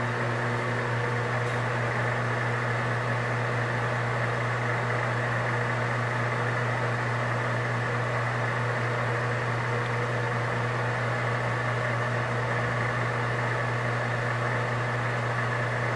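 Steady electric-motor hum of machine-shop equipment: a constant low drone with a few steady higher tones over it, unchanging throughout.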